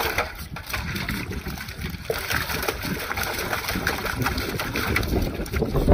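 Husky puppy splashing with its paws in a stainless steel water bowl, water sloshing and spattering over the rim onto concrete in irregular splashes. A low wind rumble on the microphone runs underneath.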